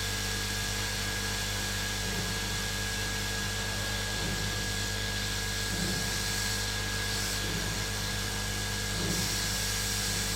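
Hot-air rework station blowing steadily with a thin high whine, while a blade scrapes underfill glue off a heated circuit board in a few faint strokes.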